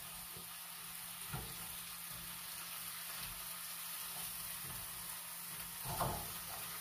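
Seasoned vegetables frying in hot avocado oil in a pan, a steady sizzle. A short knock comes about a second in and a brief louder sound near the end.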